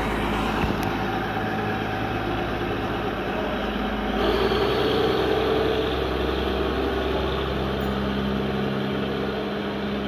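Duomatic 09-32 track tamping machine's diesel engine running steadily as the machine moves along the track. About four seconds in it grows louder and brighter.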